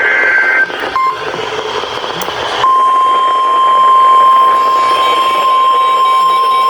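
Emergency Alert System broadcast: the end of a warbling two-tone SAME digital header burst, then a few seconds in, the steady single-pitch NOAA Weather Radio warning alarm tone begins and holds, over radio hiss. Faint repeating beeps join the tone near the end.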